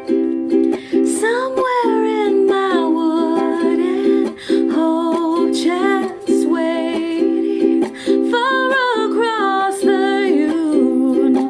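Background music: steady held chords with a wavering, vibrato-laden melody line over them.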